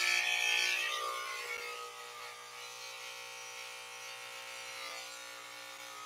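Corded electric hair clippers running with a steady buzz as they cut hair, a little louder and brighter in the first second.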